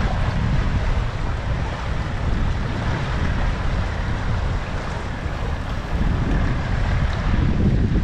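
Steady wind buffeting the microphone over rushing water, a dense low rumble with no distinct pitched engine note.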